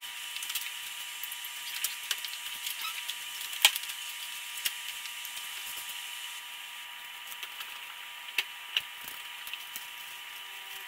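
Scattered light clicks and knocks from a new aluminium car radiator and its fittings being handled, over a steady hiss with a faint high tone.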